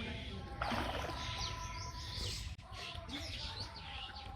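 Birds chirping, many short quick calls overlapping, over a low rumble, with a brief dropout about two and a half seconds in.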